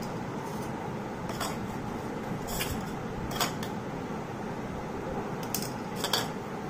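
A plastic spoon scraping and tapping in a small stainless steel bowl while stirring salt and chilli powder together, a handful of short scrapes over a steady background hiss.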